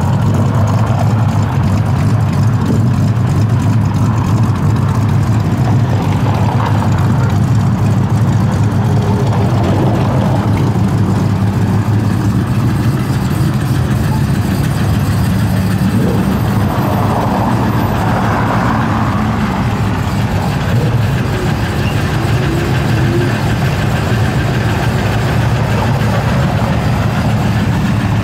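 1969 Dodge Charger's V8 engine idling steadily, a low, even exhaust rumble with no revving.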